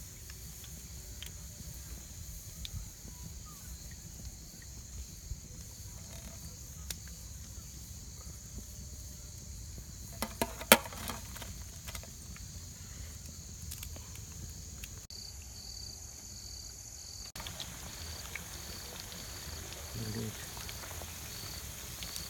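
Crickets chirping steadily, with a few sharp clinks of cookware about halfway through, the loudest sound.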